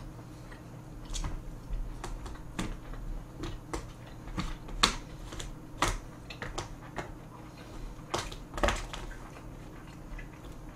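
Metal chopsticks clicking and tapping against plastic takeout containers while picking up food: irregular light clicks, a few a second, over a faint steady low hum.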